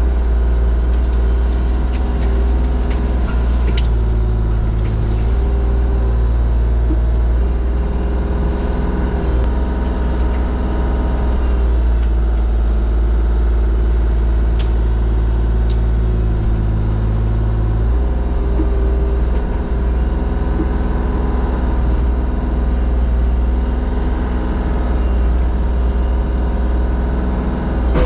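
Diesel engine of a tracked loader running a forestry mulcher, a steady heavy drone whose pitch shifts a few times as the load changes, with scattered sharp cracks.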